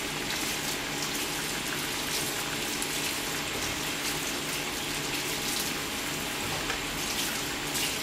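Karaage deep-frying in a wide frying pan of hot oil: a steady, dense sizzle with many fine crackles.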